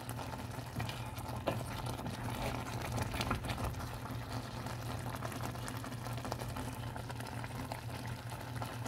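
Pot of Samyang instant noodles boiling in a steel pot: steady bubbling of the broth with small scattered pops, over a low steady hum.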